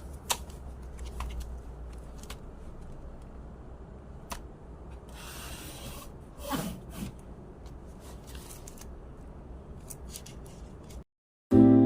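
Handling noises from close at hand: scattered light clicks and taps with a rubbing, rustling sound about halfway through, over a low steady hum.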